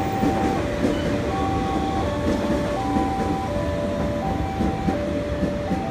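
JR 205-series electric commuter train rolling into a station, its cars and wheels giving a steady rumble. Over it plays a simple melody of plain electronic tones, with a new note about every two-thirds of a second.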